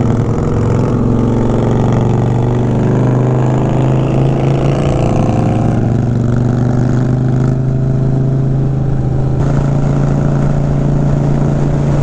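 Motorcycle engine running at a steady cruise, heard from the rider's seat. Its note climbs slowly over the first five seconds or so, then drops back slightly and holds.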